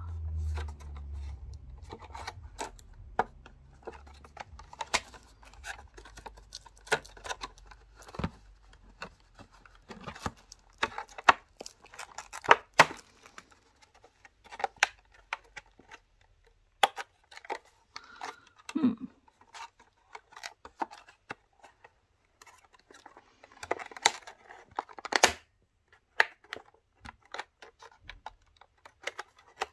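Clear plastic bags and bubble wrap crinkling and rustling as they are handled and opened, coming in fits and starts with many sharp clicks.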